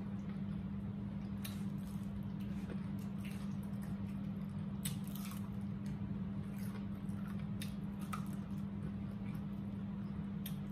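Chewing of fried chicken: soft, wet mouth smacks and clicks scattered every second or two, over a steady low hum.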